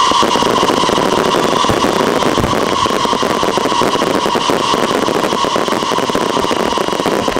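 Fireworks going off in a dense, unbroken crackle, with a steady tone running through it.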